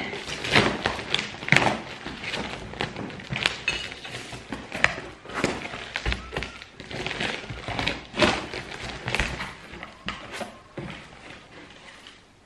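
Cardboard parcel being opened by hand: packing tape slit and torn, flaps and a paper slip handled, with irregular thuds, scrapes and rustles of the packing that get quieter towards the end.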